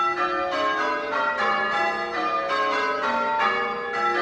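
Church tower bells rung in changes, struck one after another in quick succession so that the notes overlap and ring on.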